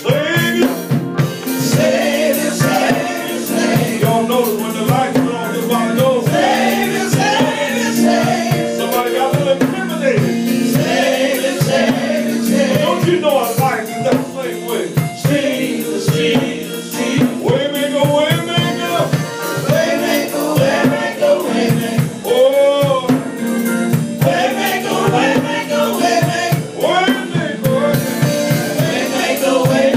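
Live gospel singing: a lead singer and backing vocalists singing with vibrato, over sustained instrument tones and a drum kit keeping a steady beat.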